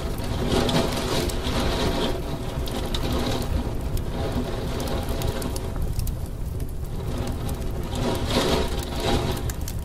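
Heavy rain slapping against a window pane: a dense, steady wash of drops with many small sharp hits.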